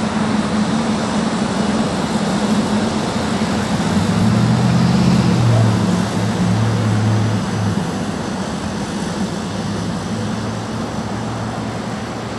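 SEPTA Paoli/Thorndale Line electric commuter train passing, its wheels rolling on the rails under a low hum. The sound peaks about five seconds in, then eases as the train moves away.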